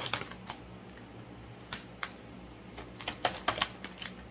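Oracle cards being handled and laid down on a table: scattered sharp clicks and taps, coming in small clusters.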